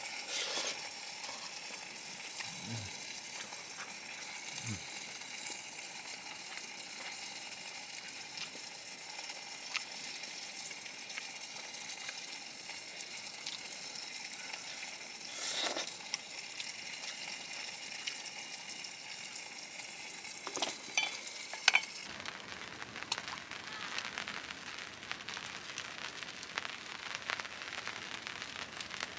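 Chicken wings sizzling as they fry in a pan, a steady hiss with a few light knocks from the utensils. About three-quarters of the way through, the sound changes abruptly to a different crackling hiss.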